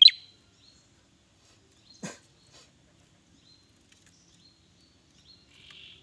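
Ashy tailorbird calling in its cage: a loud, sharp call right at the start, then a single sharp click about two seconds in. A few faint high chips follow, then a short raspy note near the end.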